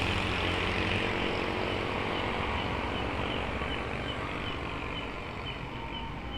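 A motor vehicle that has just sped past on the road, its engine and tyre noise fading steadily into the distance. From the middle on, a faint high chirp repeats about twice a second.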